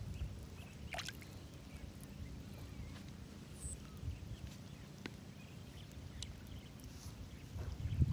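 Faint outdoor ambience: a steady low rumble with a few light clicks and a brief high chirp partway through.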